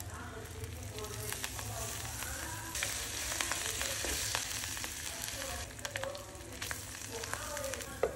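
Sliced onions and green chilli sizzling in hot oil in a clay pot, with clicks and scrapes from a spatula stirring them. Near the end a clay lid is set on the pot with a knock.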